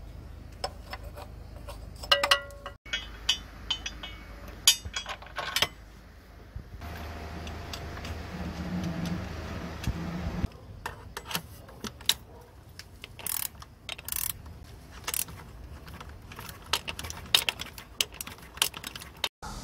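Metal hand tools clinking and a socket ratchet clicking as frame bolts on a motorcycle are worked loose. A few seconds of steady rushing noise in the middle.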